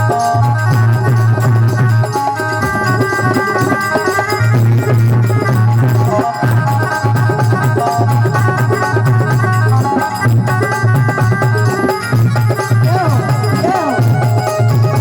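Instrumental break of a folk devotional song: a steady drum beat under a sustained melody line.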